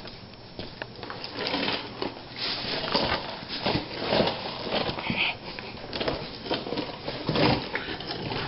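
Tools being handled: irregular clicks, light scrapes and rustling.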